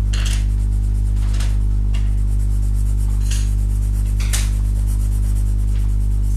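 Soft graphite pencil shading on paper: a few separate scratchy strokes, over a steady electrical hum that is the loudest sound.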